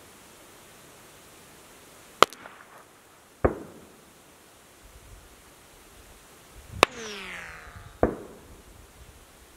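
Two long-range rifle shots landing near the camera. Each is a sharp, really loud crack like a whip crack, the supersonic bullet arriving, followed about a second later by a duller thump with a falling tail. After the second crack comes a brief falling whine.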